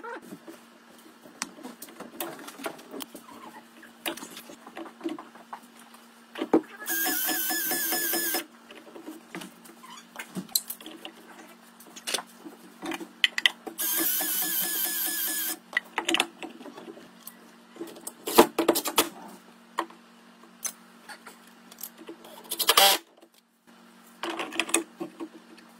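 Cordless Milwaukee M12 Fuel driver running in two bursts of about a second and a half each, driving screws into the plastic ice-maker outlet box's mounting, with clicks and knocks of handling between them. A faint steady hum runs underneath.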